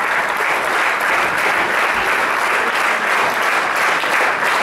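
Audience applauding steadily at the end of a folk dance performance.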